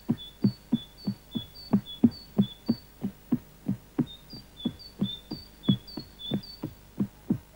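Cartoon soundtrack: a steady run of soft low thumps, about three a second, with short high chirping pips on two alternating pitches over them. The pips pause briefly in the middle and stop about a second before the end.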